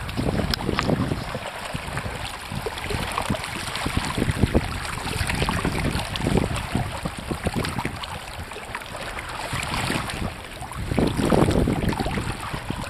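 Wind buffeting the microphone over water rushing and splashing along the hull of an inflatable kayak under sail, with a stronger gust near the end.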